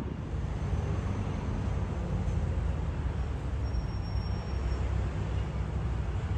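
Oscar (H set) electric multiple unit approaching the platform: a steady low rumble that holds an even level.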